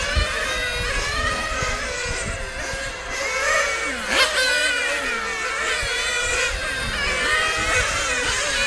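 Several nitro RC race cars' small two-stroke glow engines running at high revs, their whining pitch rising and falling as they brake and accelerate round the track. About four seconds in, one car passes close by: the loudest moment, with a quick drop and rise in pitch.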